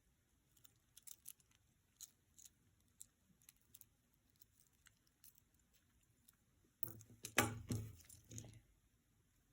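Costume jewelry being handled: faint scattered clicks of beads and chain, then a louder cluster of clinking and rustling about seven seconds in as a piece is picked up.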